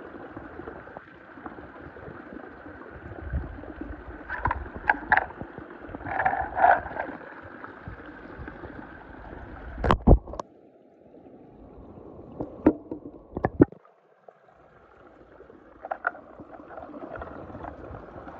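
Swimming-pool water sloshing and gurgling around a plastic toy car being dunked, with a few sharp knocks, the loudest about ten seconds in.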